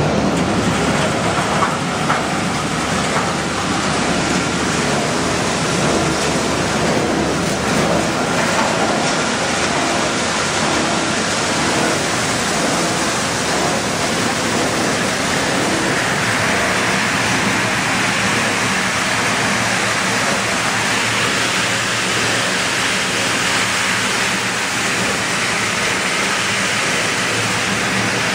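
PET bottle recycling washing line machinery running: a loud, steady rushing noise, with a brighter hiss coming in about halfway through.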